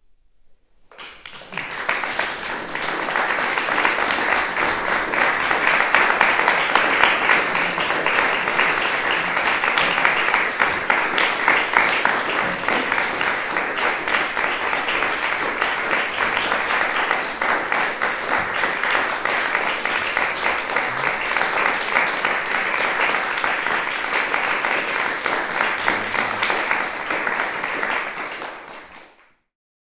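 Audience applauding. The applause starts about a second in, holds steady, and fades out near the end.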